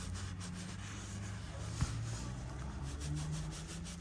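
A pry tool rubbing and scraping along the edge of an iPhone 7 Plus screen as it is worked under the glued display, over a low steady hum, with a single sharp click about two seconds in.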